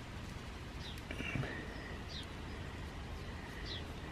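A bird chirping faintly in short falling chirps, about one every second or so, over a faint steady high tone.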